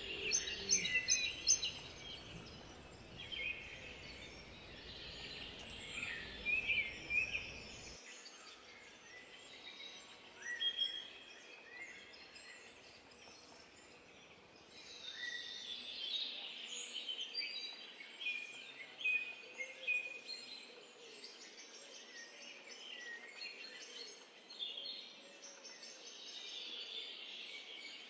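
Outdoor ambience of many small songbirds chirping and singing in overlapping bursts. A low background rumble stops abruptly about eight seconds in.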